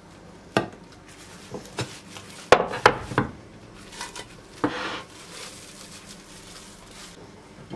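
Ceramic plate and aluminium pot knocking and clinking together as the pot is turned upside down onto the plate. A few scattered clicks, with the loudest cluster of knocks between about two and a half and three seconds in.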